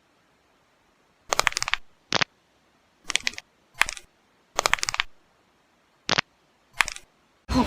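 Seven short bursts of rapid clicking, with silence between them, starting about a second in.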